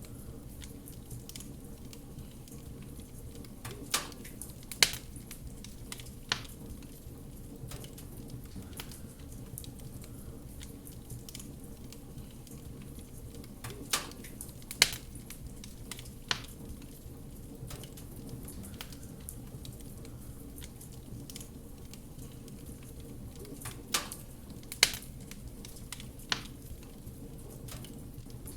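Wood fire crackling in a fireplace: a steady low rumble of burning with small scattered crackles and sharp pops. The loudest pops come in a group of three, two close together and a third about a second and a half later, repeating every ten seconds.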